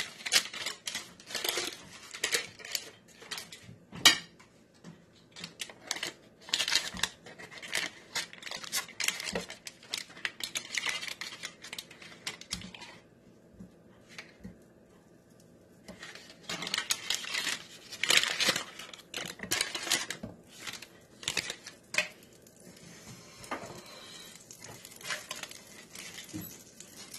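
Paper butter wrappers crinkling and tearing as sticks of butter are unwrapped and pieces dropped into a nonstick electric skillet, with a sharp knock about four seconds in. Near the end a faint sizzle begins as the butter starts to melt in the heating pan.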